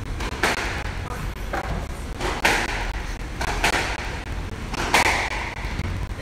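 A squash rally on a glass-backed court: the ball is struck by rackets and hits the walls in sharp smacks about five times, roughly one every second, each ringing briefly in the court.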